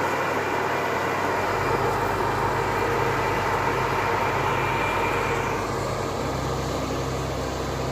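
Combine harvester running with a steady, low mechanical drone that grows deeper about six seconds in.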